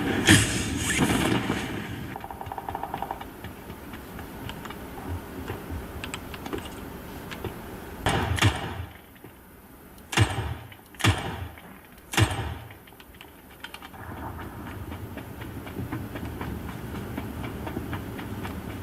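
PUBG: Battlegrounds game audio: a steady background rumble broken by loud sharp bangs, each with a short echoing tail. Two bangs come at the start, then four more come close together about eight to twelve seconds in.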